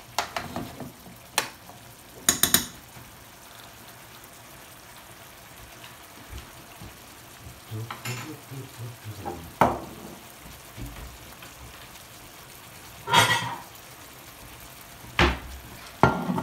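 Cod fillets simmering in a tomato broth in a frying pan, with a steady sizzle. A spoon clinks and knocks against the pan several times.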